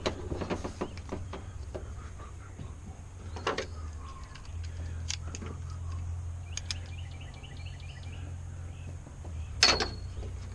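Scattered light clicks and knocks of hands handling the outboard's fuel hose and fittings, the sharpest knock near the end, over a steady low hum.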